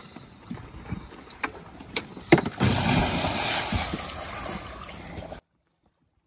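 A scuba diver going over the side of a small boat into the water. A few knocks of feet and gear on the boat, then a sharp hit about two seconds in, followed by a big splash and churning water that slowly fades. The sound cuts off abruptly about a second before the end.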